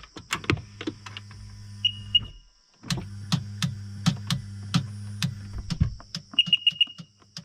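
Sea-Doo GTX starter solenoid clicking over and over, two to three clicks a second, while the engine does not crank. A low electrical hum runs under the clicks, with two short high beeps and later four. The battery tests good and the solenoid passes almost no voltage on to the starter.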